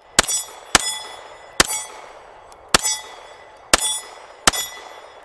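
Six shots from a Walther PDP 9mm pistol, fired at an uneven pace about a second apart, each followed by a brief metallic ring.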